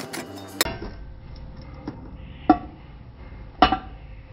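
Two sharp metallic clinks about a second apart, each with a short ring: aluminum stock and welding gear being handled against a metal workbench. A low steady hum runs underneath.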